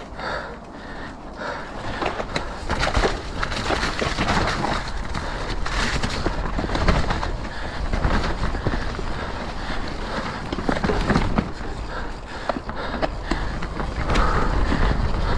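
Mountain bike riding fast over rough trail: tyres rumbling on dirt and rock, with many short clicks and knocks as the bike rattles, and a low rumble of wind buffeting the microphone.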